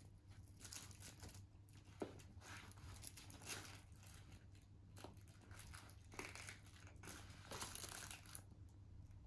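Faint crinkling and rustling from a crinkle-filled plush bird toy as a cat bites and kicks it, in short irregular bursts, with one sharp tap about two seconds in.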